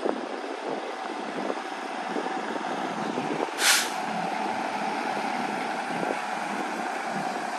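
A 2019 Freightliner M2 work truck's 6.7-litre Cummins diesel running as it drives slowly across gravel, tyres crunching. About three and a half seconds in comes one short, sharp hiss of air from the air brakes.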